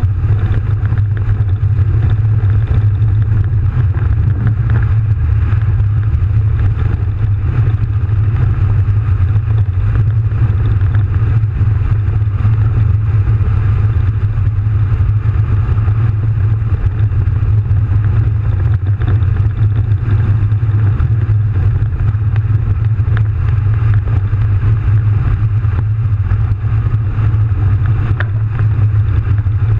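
AT-S tracked artillery tractor driving with its V12 diesel engine running, a loud steady low drone heard from inside the crew cab.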